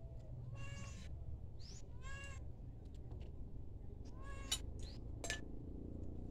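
A cat meowing three times, short pitched calls a second or two apart, with a sharp clink of a utensil on a pot about two-thirds of the way through.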